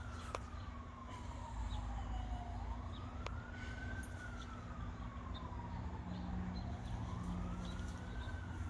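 Emergency vehicle siren in a slow wail: the pitch rises quickly and falls away slowly, about one cycle every four seconds, over a low rumble.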